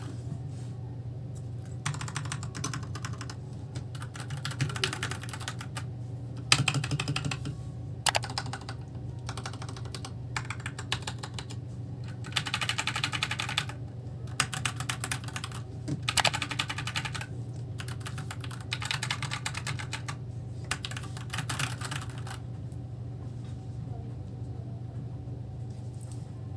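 Typing on a RAKK Lam-Ang Pro mechanical keyboard: rapid key clacks in spurts of a few seconds with short pauses, thinning out near the end, over a steady low hum.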